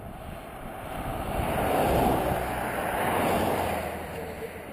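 A vehicle passing on a road: tyre and engine noise swells up, peaks in the middle and fades away.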